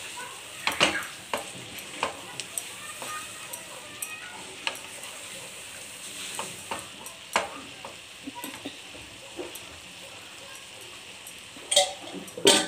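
Shredded cabbage sizzling as it fries in a pan, stirred with a spatula that scrapes and knocks against the pan at irregular moments. A cluster of louder clatters comes near the end.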